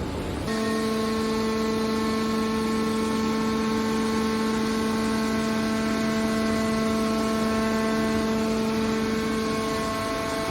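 Car body baler's hydraulic power unit running: a steady pitched hum or whine over a rushing machine noise, starting about half a second in.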